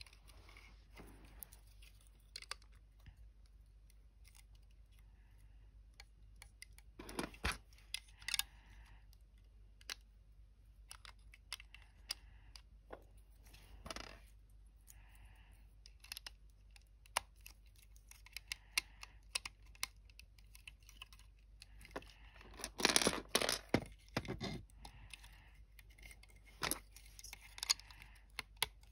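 Plastic building bricks clicking and snapping as they are pressed onto a model, with small rattles of loose bricks. The clicks come scattered and irregular, with louder flurries of clatter about seven seconds in and again around twenty-three seconds.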